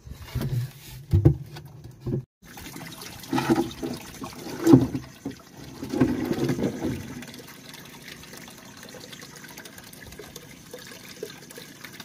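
Water sloshing and trickling around an outrigger boat's live well, with several dull knocks from the wooden hatch board being handled in the first seven seconds, then only a steady soft wash of water.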